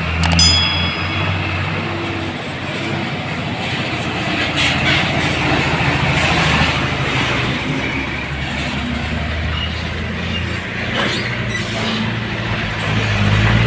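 Heavily loaded dump truck's engine running steadily on a potholed road, with a few short knocks and rattles, the engine pitch rising near the end as it picks up speed.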